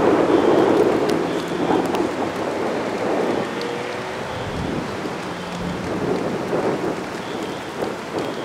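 Heavy rain pouring steadily, with a rumble of thunder that is loudest at the start and dies away over the first few seconds.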